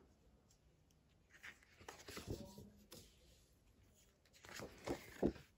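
Faint rustling and sliding of large glossy photo postcards handled and shuffled by hand, in a few short patches with near silence between.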